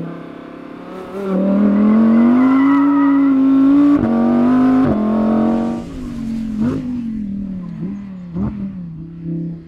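Audi R8 V10 GT RWD's naturally aspirated V10 accelerating hard, its pitch climbing and then holding high, with sharp gear-shift cracks about four and five seconds in. It then eases off and runs quieter, with a few short rev blips and cracks as it slows.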